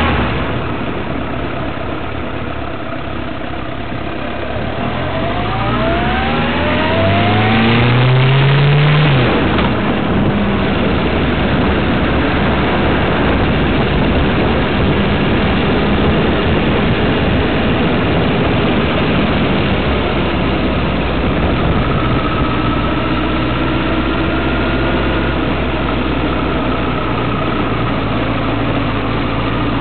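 Motor vehicle engine pulling away, its pitch rising for several seconds, then running steadily at speed with road and wind noise.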